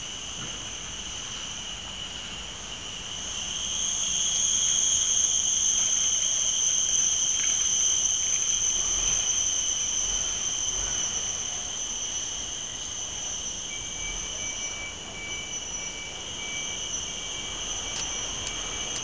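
Cicadas droning continuously in a high, steady buzz that swells louder about four seconds in and eases off over the second half. A fainter, thinner steady tone joins in during the last few seconds.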